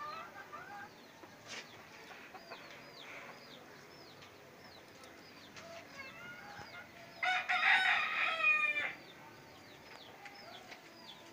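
A rooster crows once, loudly, about seven seconds in, a rough call of just under two seconds. Short high chirps repeat steadily behind it.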